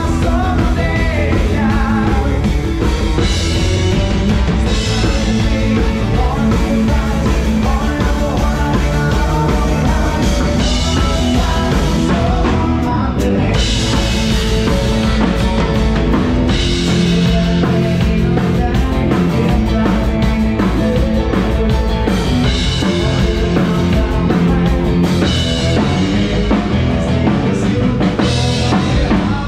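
Live band playing an upbeat rock song: electric guitars over a drum kit keeping a steady beat.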